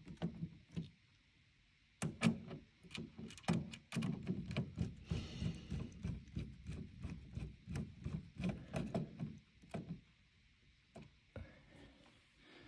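Long screwdriver tightening the screws that hold the lamp in an Epson 5040UB projector: a run of small, quick clicks and scrapes for several seconds, stopping before the end.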